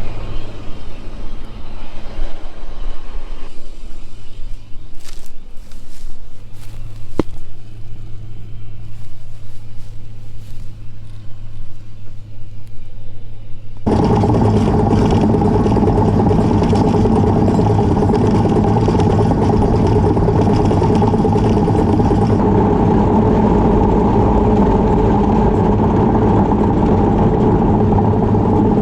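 Farm tractor's diesel engine running with a steady low hum and a few light knocks. About halfway through it turns abruptly much louder, a steady engine drone that holds to the end.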